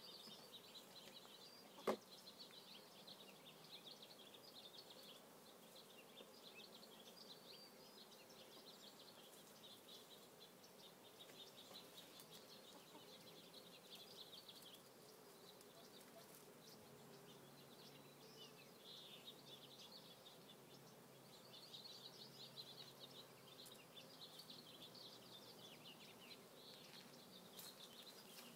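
Faint outdoor ambience of honeybees buzzing around a newly installed hive, with small birds chirping in the background. A single sharp click about two seconds in.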